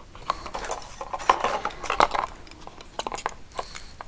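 Contact lens packaging handled and opened by hand: a run of sharp plastic clicks and clatter with rustling, loudest about one and two seconds in.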